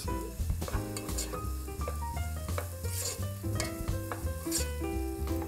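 Diced celery, onion and carrot sautéing in hot oil and butter in a pot, sizzling as they are stirred with a wooden spoon.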